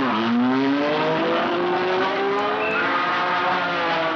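Racing car engine accelerating hard, its pitch climbing steadily through the gear.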